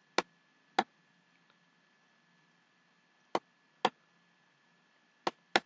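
Computer mouse button clicking: six short, sharp clicks in three pairs, each pair about half a second apart, as lines are drawn with an on-screen pen tool.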